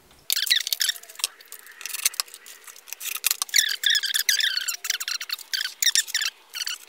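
Speech played back fast-forwarded: a high-pitched, chipmunk-like chatter of rapid syllables, with a couple of sharp clicks.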